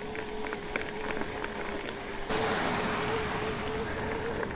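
Electric mountain bike's motor whining at a steady pitch while riding, under a rush of wind and tyre noise that gets suddenly louder about halfway through.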